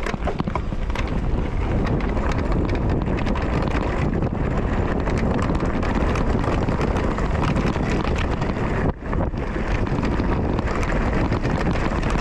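Mountain bike riding over a rough trail: wind buffeting the microphone over constant rattling and knocks, with a brief drop about nine seconds in.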